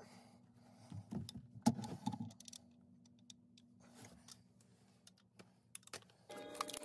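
Light scattered clicks and knocks of tools and plastic fittings being handled in a cabinet, with a cluster of louder handling noise a second or two in, over a faint steady low hum. Near the end a louder rustling, clattering noise starts.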